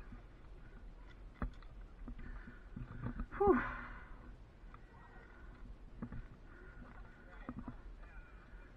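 Scattered clicks and knocks of climbing gear, hardware and tools being handled. About three and a half seconds in comes the loudest sound, a sharp knock with a brief sound that falls in pitch.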